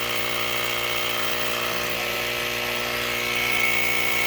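Small portable air compressor running steadily while it pumps up a flat four-wheeler tire, a motor hum over rapid piston pulsing. A high whine grows stronger about three seconds in.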